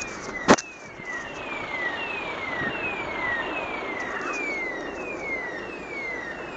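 Electronic siren sounding as a steady train of high falling tones, about one every 0.7 seconds, over road and engine noise heard from inside a moving car. A single sharp knock sounds about half a second in.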